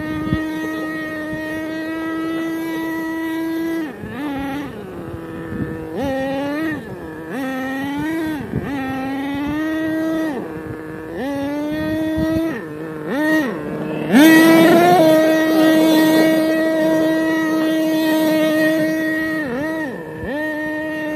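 HPI Savage 25 RC monster truck's small two-stroke nitro engine running at a steady high pitch, then rising and falling with repeated throttle blips from about four seconds in. It is loudest around two-thirds of the way through, then holds high revs steadily, with one more brief dip near the end.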